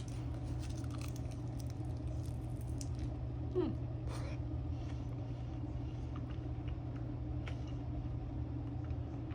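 A person chewing and eating a mouthful of food, with faint soft clicks and small mouth noises over a steady low hum, and a short falling 'mm'-like sound about three and a half seconds in.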